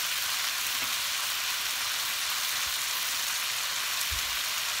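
Chicken thighs, legs and wings with sliced onion frying in oil in a nonstick pan: a steady, even sizzle as the skin renders out its fat.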